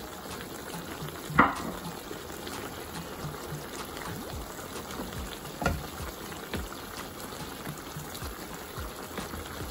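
Thick stew sauce bubbling at a simmer in a pan, with a wooden spoon stirring through it. Two short knocks, one about a second and a half in (the loudest sound) and a softer one near six seconds.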